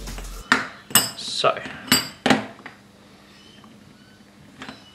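Machined robot frame parts clinking and knocking as they are set down and fitted together: about six sharp clicks in the first three seconds, then quiet, with a couple more near the end.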